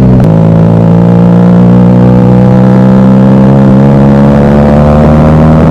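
QJ SRK 400 parallel-twin motorcycle engine running loud through a Yoshimura silencer and stainless steel bend pipe, holding a steady exhaust note that rises slowly in pitch.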